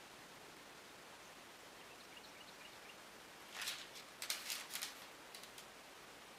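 Crackly rustling of crushed hazelnuts and parchment paper, about a second and a half long and starting about three and a half seconds in, as a nut-coated cookie dough ball is set down on a paper-lined baking tray, with a few light clicks after it over a faint hiss.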